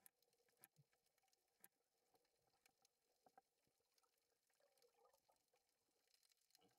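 Near silence, with faint scattered clicks and crackle.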